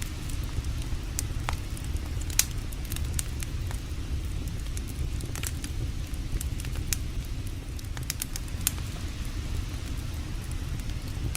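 Campfire crackling, with scattered sharp pops, the loudest about two and a half seconds in and again near nine seconds, over a steady low rumble.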